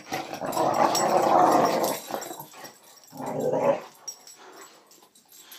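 Dog growling while play-fighting with another dog: one long growl of about two seconds, then a shorter one about three seconds in.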